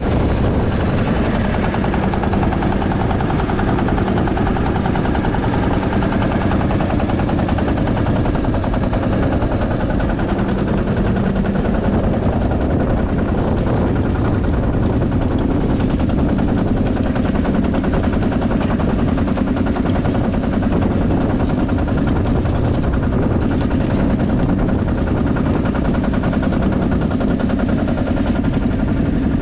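1958 Lanz Bulldog D2416's 2.6-litre single-cylinder two-stroke hot-bulb diesel running steadily under load, pulling a two-furrow plough through the soil, with a fast, even pop-pop-pop beat.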